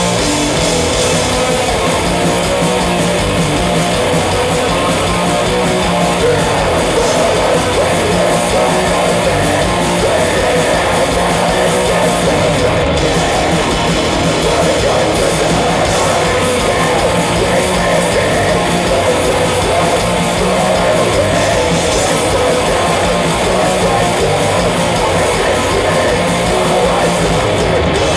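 Live metal band playing loud and without a break: distorted electric guitars and bass over fast drums.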